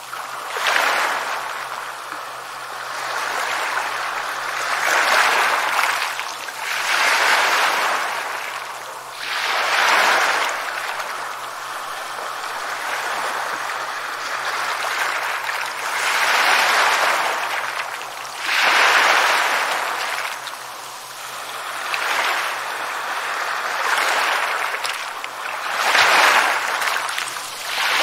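Small sea waves breaking and washing up a beach: a rushing wash of surf that swells and falls back every few seconds.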